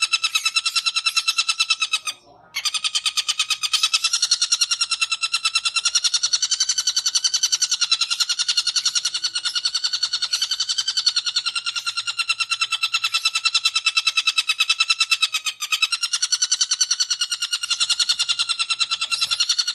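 Long-tailed shrike (cendet) giving its fast, unbroken 'ngekek' chatter, a rapid-fire rattle of harsh notes. It breaks off for half a second about two seconds in, then runs on.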